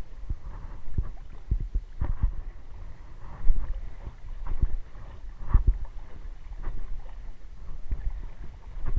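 Wading through shallow water: a splash and slosh with each stride, about one a second, over a low rumble of wind on the microphone.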